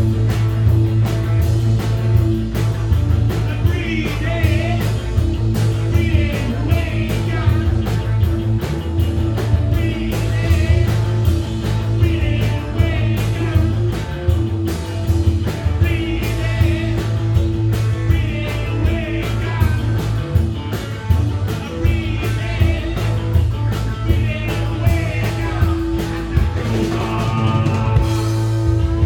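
Punk rock band playing live: electric guitar, bass and drums keeping a steady beat, with a singer over them.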